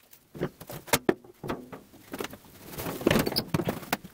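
Rummaging in an old car's open trunk full of nest debris: a few sharp knocks and clicks, then about three seconds in a louder stretch of scraping and rustling with more knocks.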